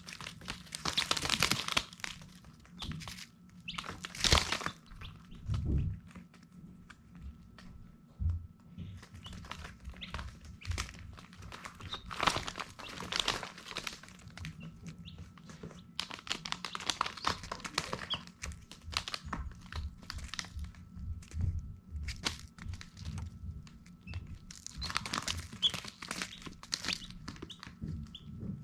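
Baby chicks rustling and scratching about, with a few short high peeps, over a faint steady hum.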